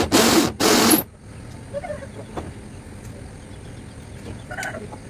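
Two short loud bursts from a hand-held power drill driving screws into the corrugated metal roof sheets, in the first second. After that, chickens cluck now and then and there are a few light taps.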